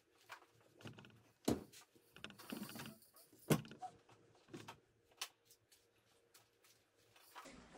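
The front seats of a 2010 Honda CR-V being slid back on their rails: faint scattered clunks and clicks of the seat tracks and latches, the loudest knock about three and a half seconds in.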